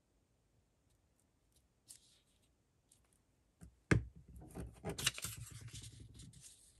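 Paper being handled: a sharp knock about four seconds in, then a couple of seconds of paper crinkling and rustling.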